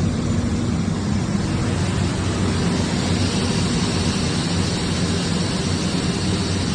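Hurco VMX64i vertical machining center's spindle running steadily at 6,000 RPM, a constant hum with a whirring hiss over it.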